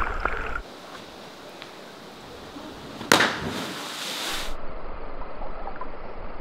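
A cliff jumper hitting the water of a quarry pool: a sudden loud splash about three seconds in, trailing off in about a second and a half of spray hiss, over a steady background hiss.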